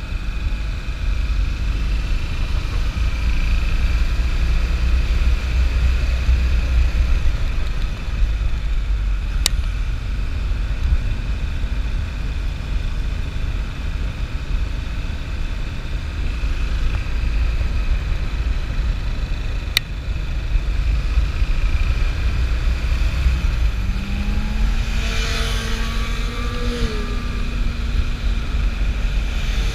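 Wind rushing over the microphone of a moving motorcycle, with the bike's engine running underneath. About 24 seconds in, an engine note rises in pitch for a few seconds. Two sharp clicks come about ten seconds apart.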